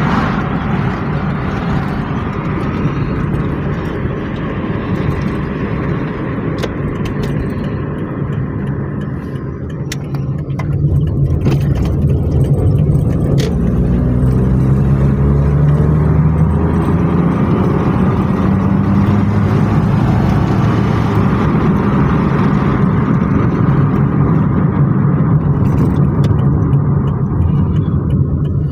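Perodua Axia's small three-cylinder engine running while the car is driven, its pitch rising and falling, in a car the owner says is misfiring. The engine gets louder from about ten seconds in.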